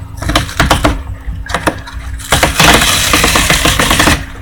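Sealed product packaging being handled and torn open: crackling clicks, then a loud sustained rip lasting almost two seconds that cuts off suddenly.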